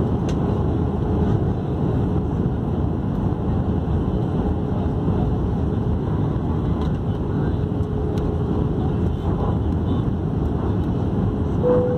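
Airbus A319 cabin noise during descent: a steady rush of airflow and engine drone, with a faint steady hum throughout and a short, brighter tone about a second before the end.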